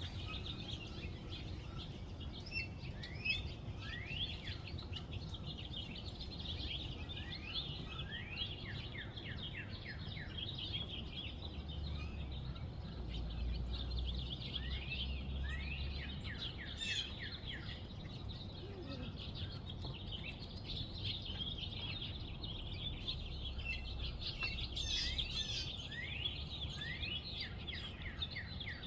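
Birds chirping and calling, with many quick down-slurred notes in rapid runs. Underneath is a steady low rumble of background noise that swells briefly near the middle.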